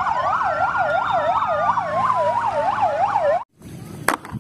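Fire engine sirens: a fast yelp warbling up and down about three to four times a second over a slower wail that rises and then falls. They cut off suddenly about three and a half seconds in, followed by a few light clicks.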